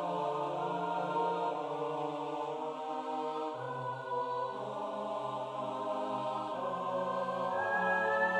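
Four-part a cappella choir singing slow, sustained chords, the parts moving from one held note to the next; the lowest voice steps down about halfway through.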